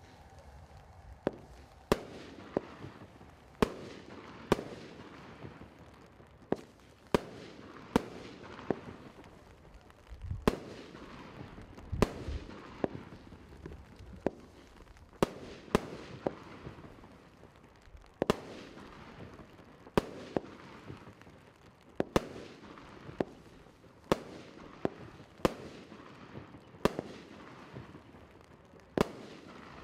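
Magnum Series Golden Gauntlet firework cake firing shot after shot, a sharp bang roughly every second, with a continuous hiss between the bangs.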